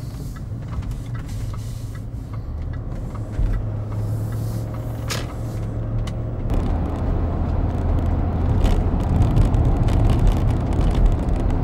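Range Rover L322's 4.4 TDV8 diesel V8 and tyre noise heard from inside the cabin while driving, a steady low hum that grows louder about halfway through.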